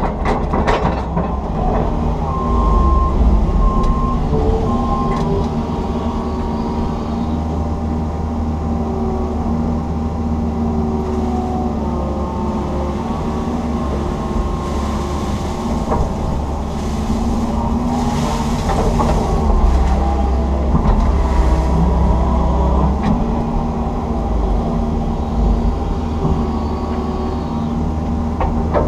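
Komatsu PC160 excavator's diesel engine running steadily under load, with its hydraulics working the boom and bucket as it digs weeds and silt out of a ditch, heard from inside the cab. Three short high beeps sound about a second in.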